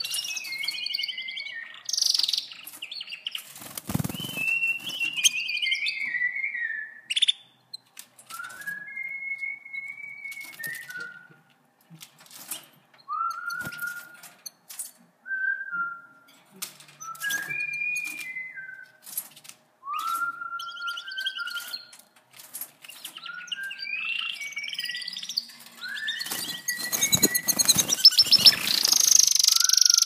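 Domestic canaries singing in short whistled notes and sliding phrases with pauses between, mixed with scattered clicks and wing flutters in the cage. The singing and fluttering grow louder and busier near the end.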